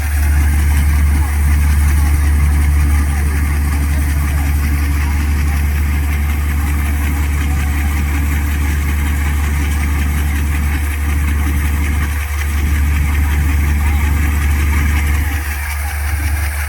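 Engine of farm machinery at a wheat harvest running steadily, with a deep, constant low drone and a thin steady hum above it.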